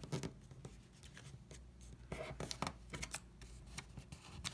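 Origami paper rustling and crinkling in short, irregular crackles as fingers fold and crease it against a tabletop.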